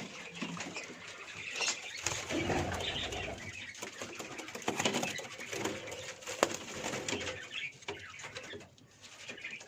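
Domestic pigeons in a loft pen flapping their wings and shuffling, with a few sharp clicks and some low cooing.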